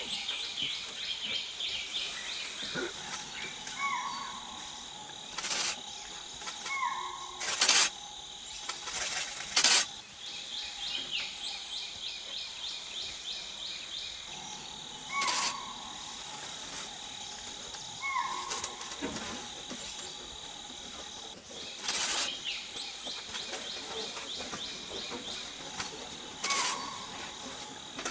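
Dry-forest ambience: a steady, fast-pulsing chorus of crickets or cicadas, with a bird repeating a short call that rises at the end every few seconds. Several loud, brief, sharp clicks stand out, two close together a few seconds in.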